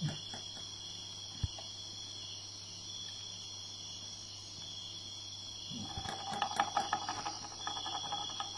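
Steady high-pitched shrilling of insects, with a single sharp knock about a second and a half in. From about six seconds in, a fast run of scratchy clicks joins, several a second.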